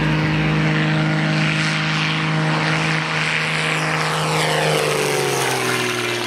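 Extra 300 aerobatic plane's six-cylinder Lycoming engine and propeller at full takeoff power, a steady loud drone whose pitch drops near the end as the plane passes and climbs away.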